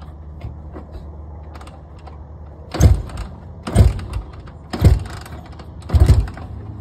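Kick-starter of a Honda CRF four-stroke dirt bike stomped four times, about once a second, the engine turning over briefly with each kick but not catching.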